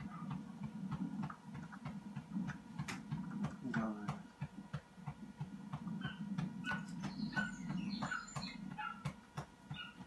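Coursing greyhounds yelping and whining in short, rapid calls, one whine falling in pitch about four seconds in, over a steady low hum.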